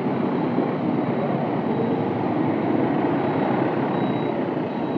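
Motorcycle riding slowly in dense street traffic: a steady running noise from the bike and the scooters and buses close around it.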